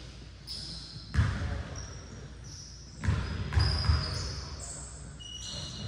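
A basketball bouncing on a hardwood gym floor: a thud about a second in, then a quick run of thuds around the middle, echoing in the large hall. Short high sneaker squeaks come and go throughout.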